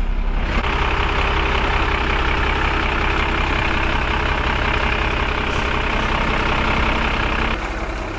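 Leyland DAF 45 truck's diesel engine idling steadily, with an even hiss laid over it that stops suddenly near the end.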